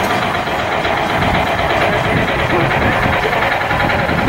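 A small engine running steadily with an even, fast pulse.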